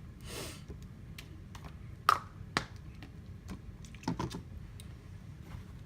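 Small objects being handled and put away: a short rustle near the start, then scattered sharp clicks and light knocks, the loudest about two seconds in and a quick cluster about four seconds in.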